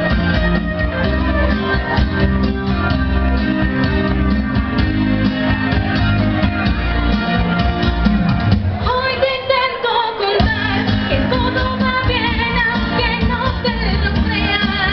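Amplified live band playing a pop-rock song, with a woman's singing voice coming in about halfway through; the low end drops out for a moment just after the vocal enters.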